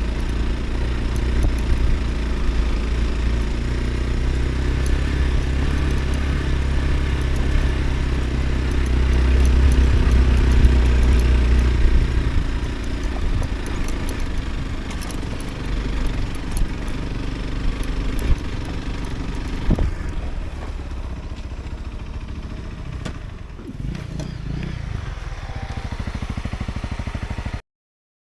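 Motorcycle engine running, growing louder around ten seconds in and then easing off, with a few clicks and knocks later. The sound cuts off suddenly near the end.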